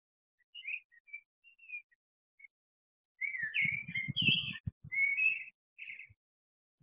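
A songbird singing short warbled and whistled phrases, sparse at first and fuller from about three seconds in. Low thumps and rumble sound under the song around the middle.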